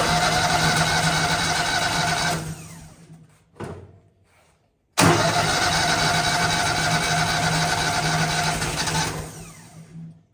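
Starter cranking the gasoline engine of a Miller Bobcat 250 welder-generator, two tries of about three to four seconds each that wind down without the engine running on. The owner suspects a bad fuel pump is keeping it from firing.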